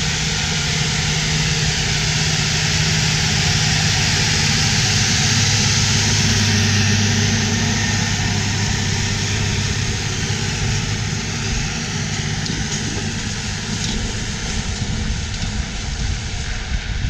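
Versatile 550 Delta Track tractor's 15-litre Cummins diesel pulling a 14-bottom moldboard plow past at close range: a steady engine drone that is loudest about a third of the way in, then eases slightly as the tractor moves away.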